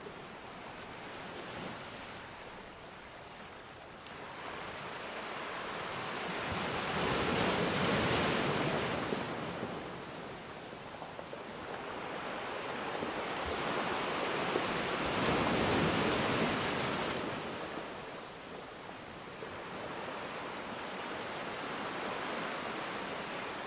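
Sea waves surging onto the shore and washing back, swelling to two loud peaks about eight and fifteen seconds in, with a smaller one near the end.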